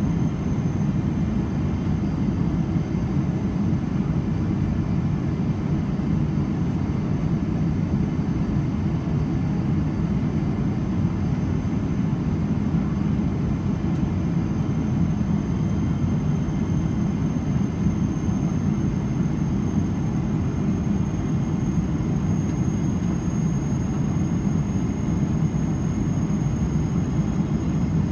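Steady cabin noise inside a Boeing 777-300ER in flight: a constant low rumble of airflow and its GE90 turbofan engines, with a thin high whine held over it.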